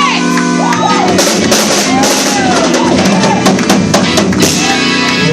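Live church band music: a drum kit playing a beat under sustained keyboard chords.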